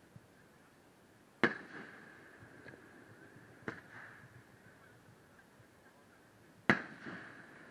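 Aerial firework shells bursting overhead: three sharp bangs a couple of seconds apart, the first and last loudest, each followed by a rolling echo.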